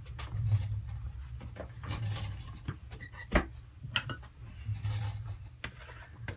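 Small clicks, taps and rustles of a phone and small tools being handled on a workbench, with one sharper click about three and a half seconds in.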